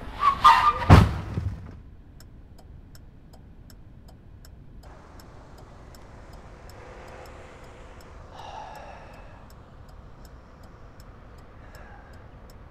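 A car collision: a sudden crash with two heavy thuds in the first second and a half. Then a steady, faint ticking over a low background hum.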